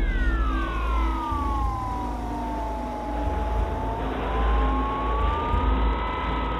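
Bixler RC plane's electric motor and propeller whining, heard from its onboard camera. The whine falls steadily in pitch over the first three seconds, then rises a little and holds, over heavy wind rumble on the microphone.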